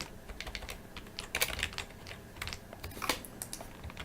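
Typing on a computer keyboard: irregular key clicks in short runs with brief pauses.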